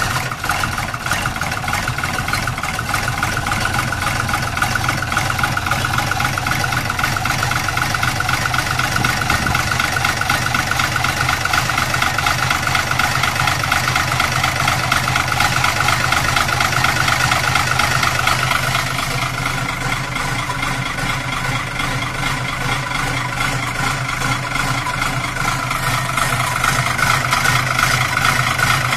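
Fiatagri F100 tractor's diesel engine idling steadily just after a cold start, with a fast even beat from the exhaust.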